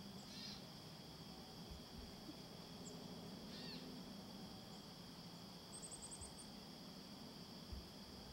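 Faint woodland background: a steady high insect drone, broken by a few short falling bird chirps and a quick high-pitched trill about six seconds in. A soft low thump comes twice.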